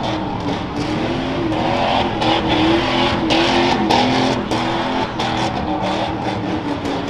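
Rough-truck race pickup's engine revving hard as it drives a rough dirt course, the pitch held high and wavering with the throttle, with scattered knocks and clatters over it.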